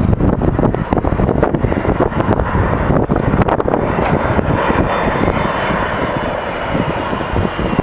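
Boeing 767-300 airliner on final approach, its twin turbofan engines giving a steady jet noise, with a high engine whine joining about halfway through.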